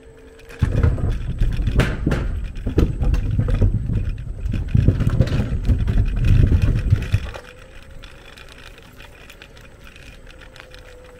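An electric scooter's wheels rattle and bump over a bridge deck. This starts just under a second in and stops about seven seconds in. The ride then smooths out, leaving the scooter motor's faint steady whine.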